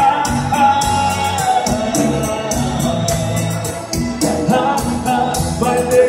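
Live dance band playing through the hall's speakers: keyboards and bass carry a held melody over a steady drum beat.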